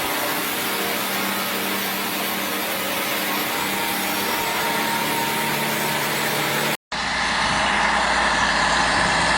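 A powered wood-cutting saw machine running steadily, cutting off suddenly about seven seconds in. Then a log skidder's engine running steadily.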